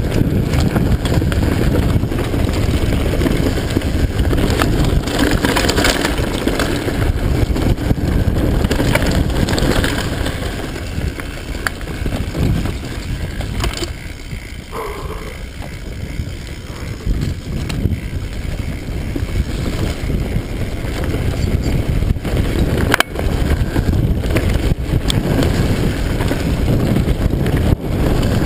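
Mountain bike descending a dirt singletrack: continuous tyre rumble and rattling of the bike, heard from a handlebar-mounted camera with wind buffeting the microphone. It goes quieter for several seconds midway, and there is a sharp knock about 23 seconds in.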